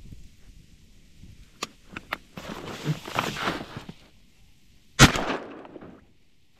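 Shuffling and a few sharp clicks as a shotgun is brought up, then a single loud shotgun blast about five seconds in, dying away over most of a second.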